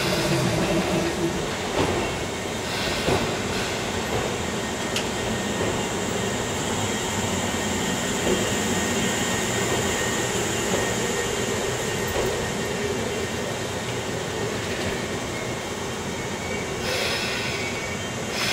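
Izukyu 8000 series electric train rolling slowly alongside the platform as it pulls in and brakes, a steady rumble of wheels and running gear, with a brief hiss near the end.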